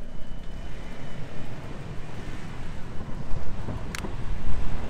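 Wind buffeting the microphone of a camera riding on a moving bicycle, a steady low rumble mixed with street traffic noise. A single sharp click about four seconds in.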